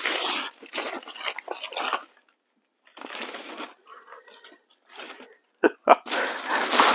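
Paper and plastic packaging crinkling, crunching and tearing as it is handled by hand, in uneven bursts with a short pause about two seconds in. Two brief sharp sounds come shortly before the end.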